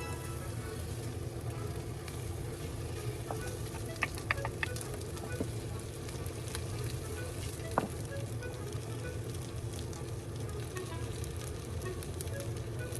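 Food sizzling in a frying pan: a steady hiss with scattered pops and crackles, and a few sharper clicks about four seconds in and again near eight seconds.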